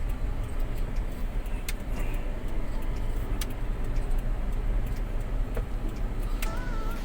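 Vehicle driving slowly over a rough dirt track: a steady low engine and road rumble, with scattered rattles and knocks from loose things in the cabin.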